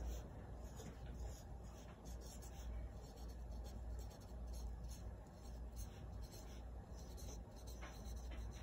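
Writing: faint, irregular scratchy strokes of a pen or marker, over a low steady hum.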